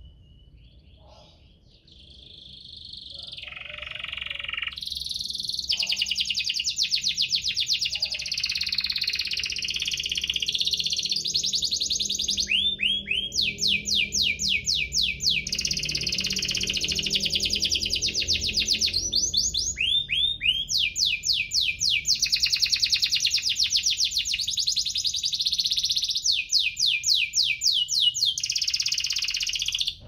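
Domestic canary singing a long, continuous song of rapid rolling trills and chirps, broken several times by runs of quick sweeping notes. It swells up over the first few seconds and cuts off suddenly at the end.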